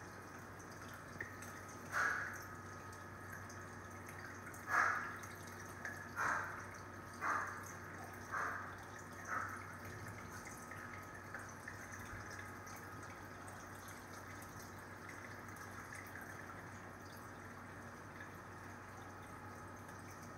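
Reef aquarium water trickling and dripping over a low steady hum. A few seconds in there is a run of six sharp sounds, about one a second.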